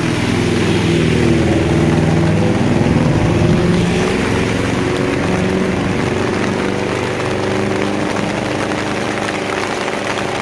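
A motor vehicle's engine running close by, loudest in the first few seconds and then fading, over the steady hiss of heavy rain.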